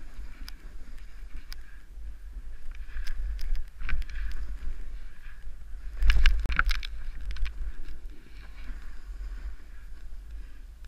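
Downhill skiing in powder heard from a helmet camera: a steady rumble of wind on the microphone under the hiss of skis through snow, with scattered sharp clicks. The loudest clatter, about six seconds in, comes as a ski pole is planted.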